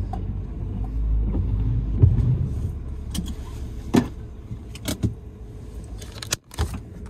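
Car cabin as the car comes to a stop: the low engine and road rumble fades out about two seconds in, followed by scattered sharp clicks and knocks inside the cabin.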